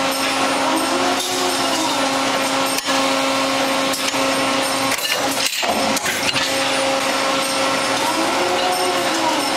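Coil-spring forming machine running as it winds steel wire into a spring: a steady mechanical hum with a few sharp clicks, and a faint whine that rises and falls about a second in and again near the end.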